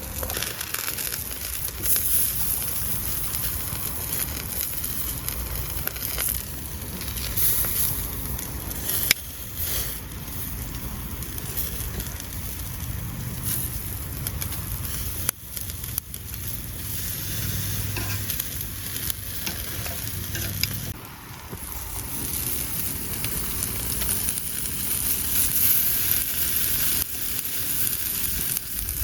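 Food sizzling as it fries in a pan, a steady crackling hiss, with a couple of sudden breaks in the sound.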